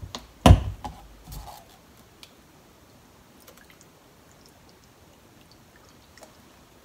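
A sharp snap about half a second in as the flip cap of a plastic soy sauce bottle is opened, then soy sauce pouring quietly onto chicken in a stainless steel bowl, with a few faint drips and ticks.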